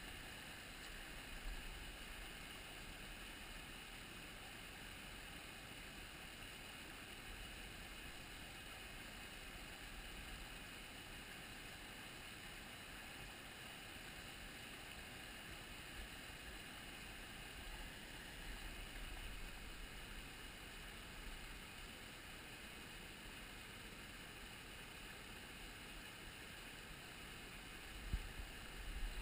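Faint, steady rush of a small mountain stream's water running over rocks, with a little low rumble on the microphone and a few soft bumps near the end.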